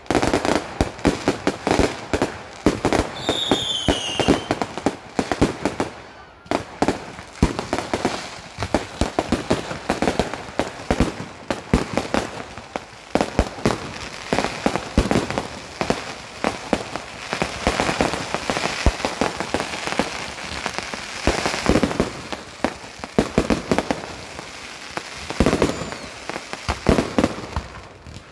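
Fireworks display: a dense, continuous run of bangs, pops and crackling from bursting shells, with a brief high whistle about three seconds in.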